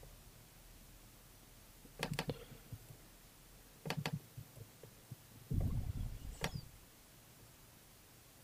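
Faint clicks of a computer mouse: a pair of clicks about two seconds in, another pair about four seconds in, then a duller knock with a low thump around six seconds in and one more click just after.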